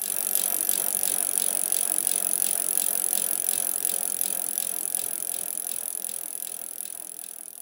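Sleigh bells shaken in a steady rhythm, about three shakes a second, making a continuous bright jingle that grows gradually quieter toward the end.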